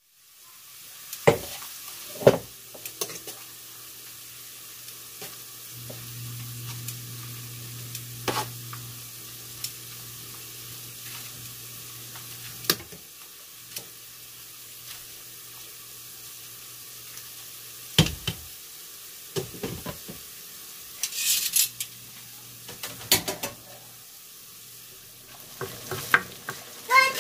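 Metal tongs clinking and knocking against a stainless steel pot while stirring noodles in water, over a steady hiss of cooking. Near the end, chopped onions sizzle in a stainless frying pan as they are stirred.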